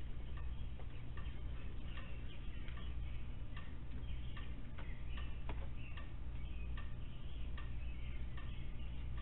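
A raccoon crunching dry pet food from a plate, a run of irregular sharp clicks and crunches, over a steady low electrical hum from the security camera's microphone.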